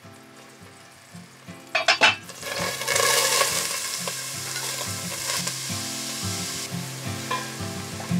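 Chopped onions tipped into hot oil in a stainless steel pot, sizzling from about two and a half seconds in, loudest at first and then settling to a steady sizzle as they are stirred with a wooden spoon. A few metal clinks come just before the sizzle starts.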